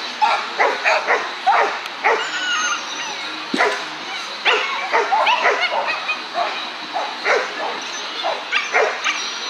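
A dog barking repeatedly in short, sharp barks, two or three a second, with a brief lull about three seconds in.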